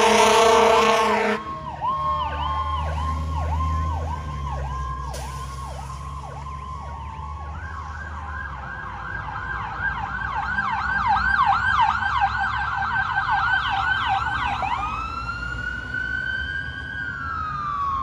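Fire engine air horns blaring for about the first second and a half, over a low engine rumble. Electronic sirens follow: a yelp cycling about twice a second, then a faster, higher yelp from about eight seconds in, then a wail that rises and slowly falls near the end.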